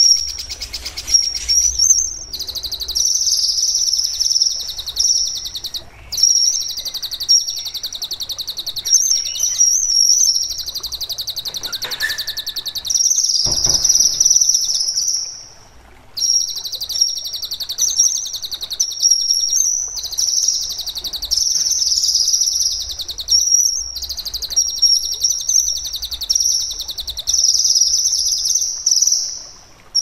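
A kinoi songbird singing long, fast, shrill rattling trills, each phrase held for several seconds with brief pauses between. There is one short knock about halfway through.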